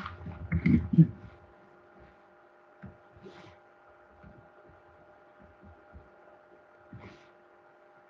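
A steady faint hum made of several held tones, with a few soft taps of a stylus on a drawing tablet while handwriting. A brief mumbled voice comes in the first second or so.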